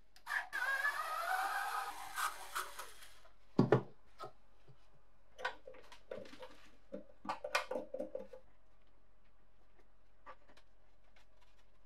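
A cordless drill-driver runs for about three seconds, its motor whine wavering in pitch as it works a rusted screw. A couple of loud knocks follow, then short scratching strokes of a steel pick scraping caked dirt and rust off a small metal hinge bracket.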